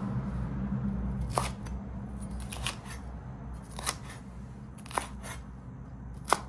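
Kitchen knife slicing green peppers on a cutting board: a series of sharp taps of the blade against the board, roughly one a second.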